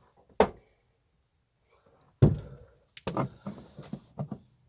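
Knocks and clunks from handling a drill and wooden boards: a sharp click near the start, a loud thunk a little over two seconds in, then a quick run of lighter knocks.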